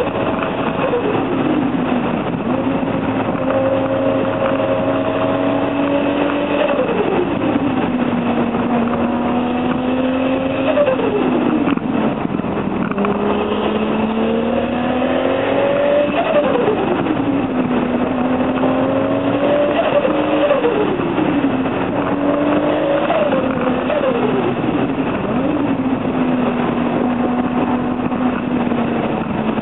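Toyota Supra's turbocharged straight-six, fitted with a T04Z turbo, driven hard: the engine note climbs steadily and then falls away quickly, six or so times, as it pulls up through the revs and comes off the throttle or changes gear.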